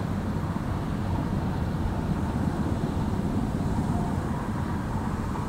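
Low, steady rumble of a Ro-Ro passenger ferry's engines as it comes into harbour.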